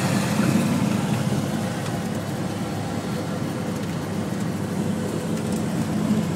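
Cessna 182's piston engine and propeller running with a steady drone, heard from inside the cockpit during the landing rollout; it gets a little louder near the end.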